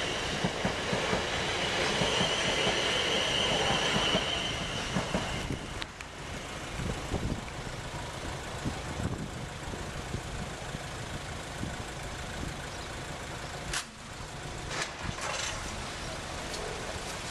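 Class 450 Desiro electric multiple unit running over a level crossing: a loud rumble of wheels on rail with a steady high tone, which cuts off about six seconds in as the train clears. After that there is quieter background sound, with a sharp click and a few knocks near the end as the crossing barriers begin to lift.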